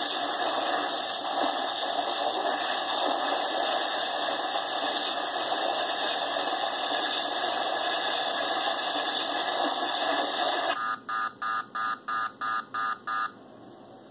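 Proton pack firing sound effect played through a small speaker: a loud, steady, noisy blast that cuts off about eleven seconds in, followed by a quick run of about eight pulsing warning beeps, the overheat warning for holding the fire button too long.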